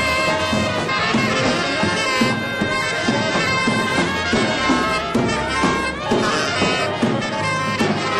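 Free jazz from a large band of trumpets, saxophones, piano, two double basses and drums, with brass prominent and many pitched lines sounding at once in a dense, continuous texture.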